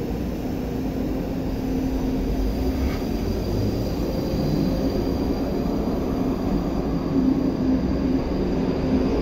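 ScotRail electric multiple unit running along the platform: a steady low rumble of wheels and traction equipment that grows slowly louder, with a faint high whine coming in near the end.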